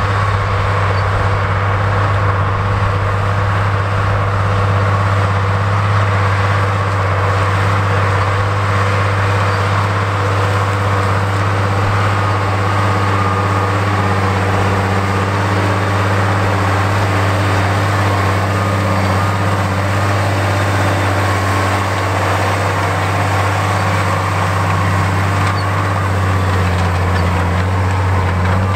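Case IH 8950 Magnum tractor's six-cylinder turbo diesel running steadily under load while pulling a tillage implement, a loud, deep, unbroken drone.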